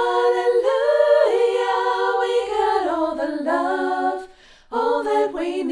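A woman's voice singing a cappella in two-part harmony with herself, holding long notes that step and glide in pitch. The singing breaks off briefly a little over four seconds in, then resumes.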